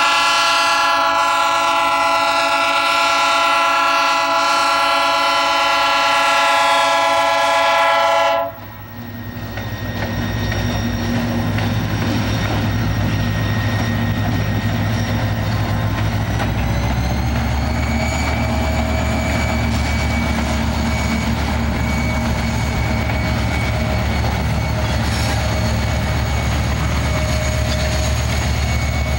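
Freight train's diesel locomotive horn sounding one long chord for about eight seconds, then cutting off sharply. Then the slug locomotive set (EMD GT22 with its slug) passes with a steady low diesel rumble that builds and grows louder as it draws level.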